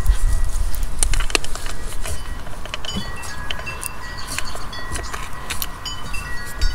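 Wind chimes ringing at several pitches, with wind rumbling on the microphone and scattered small metallic clicks.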